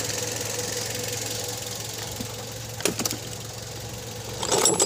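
Toyota Vios four-cylinder VVT-i engine idling steadily with the hood open. A sharp click about three seconds in and a short clatter of clicks near the end.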